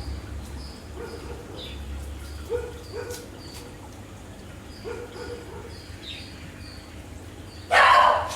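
A dog barks loudly once near the end, over short high chirps repeating about twice a second and a low steady hum.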